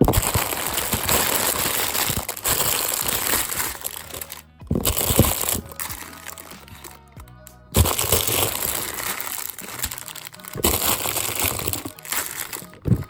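A boxful of plastic packets and jars of slime sprinkles crinkling and clattering as it is tipped out and spread over a table. It comes in several bursts with short lulls between, over background music.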